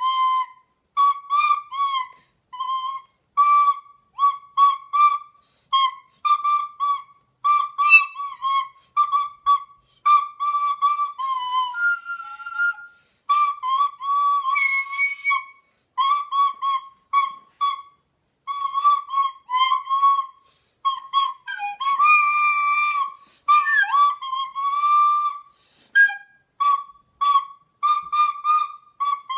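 Recorder playing a melody of many short, separately tongued notes in a narrow high range, grouped into phrases with brief gaps. A few notes slide or waver in pitch.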